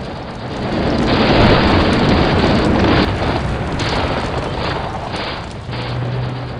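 Battle sound effect of wartime explosions booming one into another, with sharp bangs now and then; it swells about a second in and stays loud.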